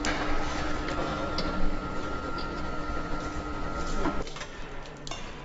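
Car assembly plant ambience: a steady machine noise with two steady hum tones, one low and one higher, that cut off about four seconds in, with scattered clicks and knocks.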